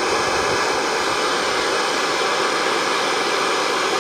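Sanyo Campanetta 7-band radio's speaker giving a steady FM hiss. It cuts in suddenly and stays unchanged while the tuning dial is turned: the tuning has no effect on FM, which the owner suspects could be a tuning string issue.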